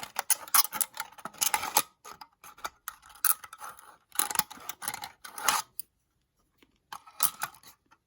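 Old hand tinsmith's shears cutting thin aluminum sheet: a series of snipping cuts with sharp blade clicks, a pause about six seconds in, then one last short cut.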